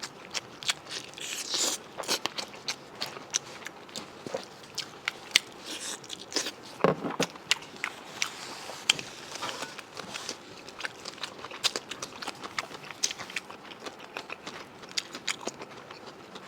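Close-miked chewing and biting of tripe-wrapped meat with bones in it: many sharp wet clicks and small crunches, with one louder low knock about seven seconds in.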